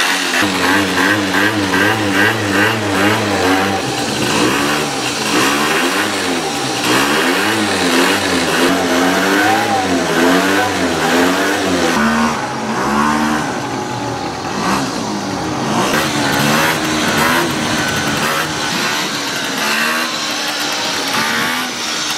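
Peugeot scooter's small engine running and being revved again and again, its pitch rising and falling in waves as it is warmed up after sitting unused through the winter; in the second half it pulls away and is ridden at low speed.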